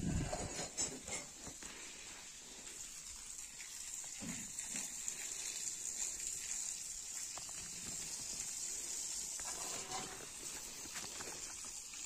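Quiet outdoor ambience with a faint, steady high-pitched hiss, a soft knock at the start and a faint low sound about four seconds in.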